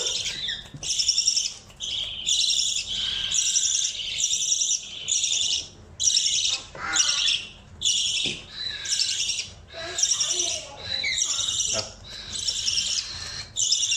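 Budgerigar giving short, harsh, high calls in an unbroken series, about one call a second.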